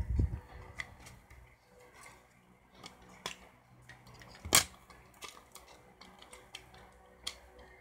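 Scattered small clicks and taps of the plastic parts of a Lyft glowstache being handled, with a low thump at the start and one sharper click about four and a half seconds in.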